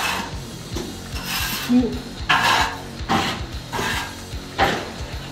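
Plumber's hemp fibres rubbing as they are pulled and wound onto the threaded end of a steel heating pipe to seal it before it is capped, heard as about five short rubbing sounds over background music with a steady beat.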